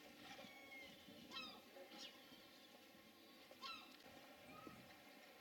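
Faint outdoor background with a few short, high bird chirps that slide downward in pitch.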